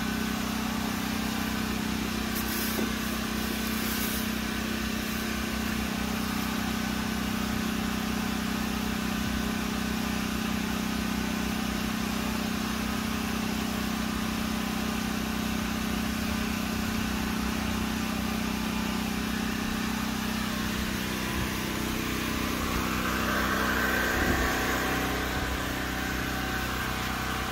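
Predator 9000 portable generator's engine running at a steady speed, an even hum. A rushing noise swells and fades between about 22 and 26 seconds in.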